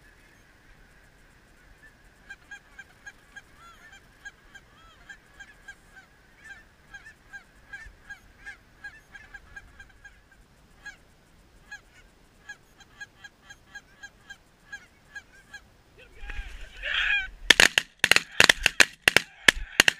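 Geese honking, a long run of short calls several per second, then near the end a rapid volley of about ten shotgun blasts from several guns fired at the flock.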